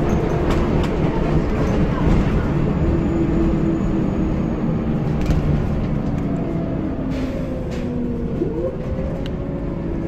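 Scania L94UB single-decker bus heard from inside the cabin while driving: a steady engine and drivetrain rumble with tones that drift slowly in pitch. One tone sweeps sharply upward about eight and a half seconds in, and there are a few short clicks and rattles.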